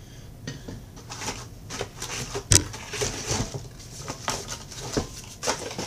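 Cardboard packing inserts and plastic wrap rustling and scraping as boxed cookware is handled, with a sharp knock about two and a half seconds in.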